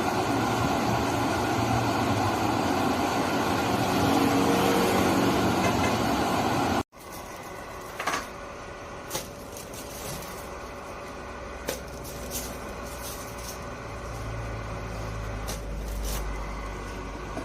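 KONIG exhaust fan running with a loud, steady rush of air that stops abruptly about seven seconds in, leaving a quieter steady hum with a few sharp clicks and knocks.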